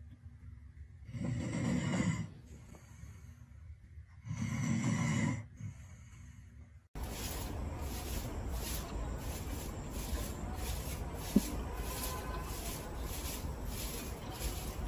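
A dog snoring: two long, loud snores about three seconds apart. Then comes a bristle broom sweeping a dirt path in quick repeated strokes, about two a second.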